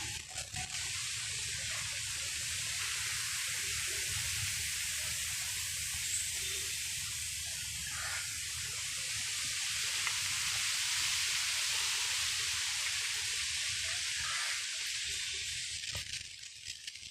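Steady outdoor hissing noise with a low rumble underneath.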